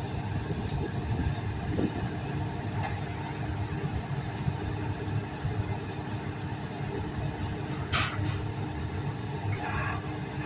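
Heavy machinery's engine running with a steady low rumble, with a brief high squeal about eight seconds in.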